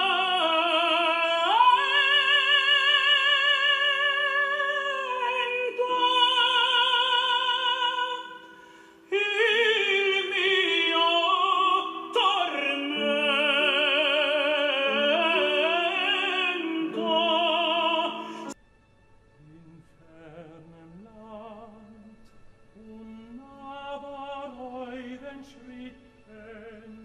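Operatic tenor singing loudly with wide vibrato and sustained high notes. About two-thirds of the way through it cuts off suddenly, and another tenor sings softly over a low hum.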